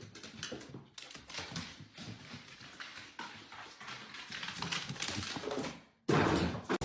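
A dog making small sounds, with a run of quick, irregular clicks and scuffles; the sound breaks off briefly about a second in and again near the end.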